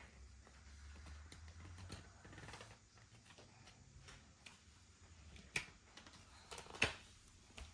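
Faint scattered clicks and light taps, with two sharper clicks in the second half.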